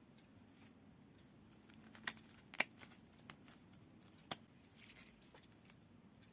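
A few light, sharp clicks and taps over quiet room tone, with a brief rustle near the end.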